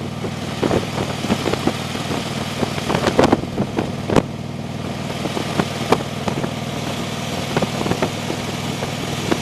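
Motorcycle engine running steadily at cruising speed, heard from the rider's seat behind the windshield. Wind buffets the microphone in irregular short thumps, the loudest a few seconds in.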